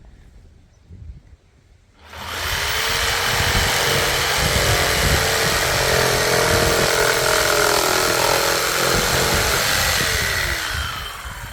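Einhell chop saw switched on about two seconds in: the motor whines up to speed, runs at full speed through a cut in a wooden table leg, then winds down with a falling whine near the end.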